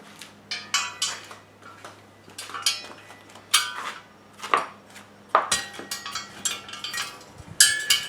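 Steel sockets clinking and clattering as they are picked out and handled: a run of irregular sharp metallic clinks, some ringing briefly.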